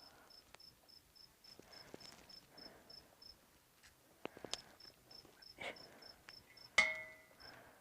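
A cricket chirping in even pulses, about four a second, pausing briefly partway through. Soft clicks and rustles of hands working a hook into a carp-head bait, and a sharper click with a brief squeak near the end.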